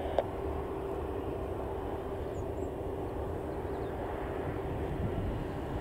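Panavia Tornado GR4's two RB199 turbofan engines running steadily at taxi power, heard from a distance as a constant rumble with a held low hum.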